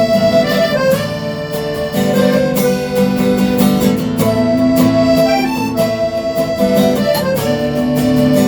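A band playing an instrumental break: a lead instrument holds long sliding notes over steadily strummed guitar.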